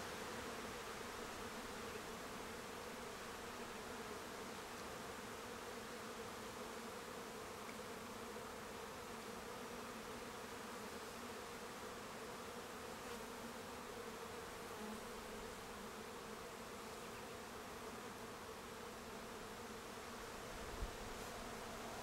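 Honey bees buzzing around an opened hive: a steady, even hum of many bees that holds unchanged throughout.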